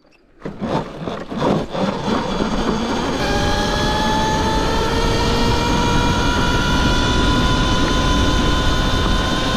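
Talaria XXX electric dirt bike pulling away about half a second in, with a few throttle surges, then its electric motor whine rising slowly in pitch as it gathers speed. A steady rush of wind and tyre noise runs under the whine.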